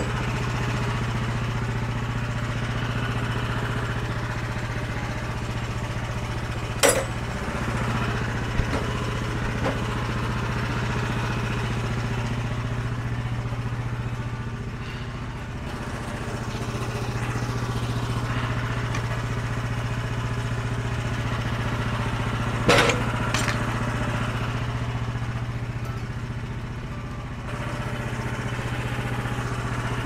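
The petrol engine of a Frontier OS23 portable bandsaw mill running steadily, with two sharp metallic clanks about seven seconds in and again near the twenty-three-second mark.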